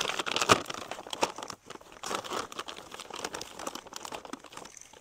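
Plastic bag crinkling and crackling as it is handled, busiest in the first second or two and thinning out toward the end.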